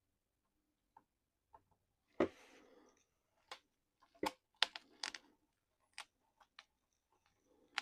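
Small plastic RC truck parts being handled and fitted: a string of sharp clicks and taps, with a brief rustle after the loudest click about two seconds in.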